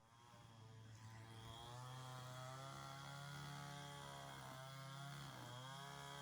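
Faint hum of an engine running, steady apart from two brief dips in pitch partway through.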